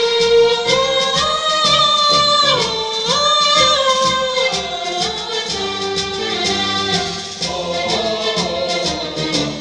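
Mixed choir of men and women singing a melody together over instrumental accompaniment with a steady beat.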